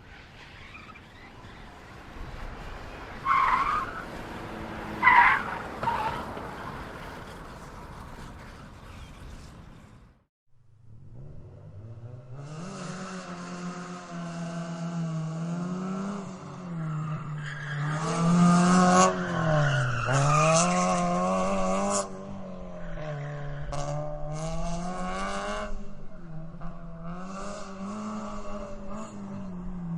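Car tyres screeching: first a skid with three short squeals, then, after a brief break about ten seconds in, a car engine revving up and down repeatedly while the tyres squeal on through long wheelspin.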